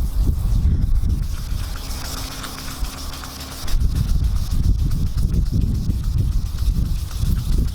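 Hand wet-sanding of a boat's fibreglass gel coat with 800-grit sandpaper: a hissing rasp of the paper over the hull, clearest for a stretch about two to three and a half seconds in, under a heavy low rumble of wind on the microphone.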